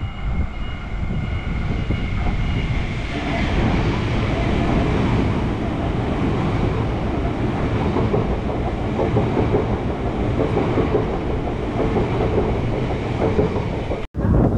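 Melbourne Metro electric suburban train running through the station platform: a high whine as it approaches, then a steady rumble with wheel clatter as the cars pass close by. The sound cuts off abruptly near the end.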